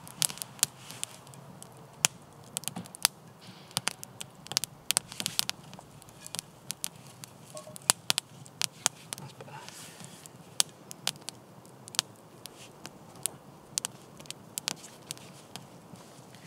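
Split-wood campfire crackling, with sharp irregular pops several times a second.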